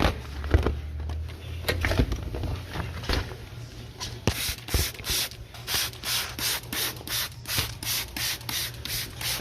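Hand trigger sprayer squirting coil cleaner/degreaser onto an air-conditioner evaporator coil: a regular run of short hissing squirts, about two a second, starting about four seconds in, after a few scattered knocks.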